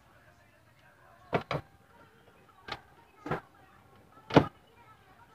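Sharp clicks and knocks of tools on the plastic back cover of a 20-inch Star Coby LED TV as it is being opened: a quick pair a little over a second in, two more in the middle, and the loudest about four seconds in.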